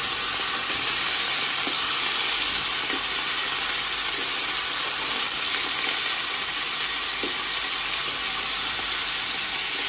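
Lamb neck pieces sizzling steadily as they brown in ghee in a nonstick pan, with a few light knocks of a wooden spatula turning them.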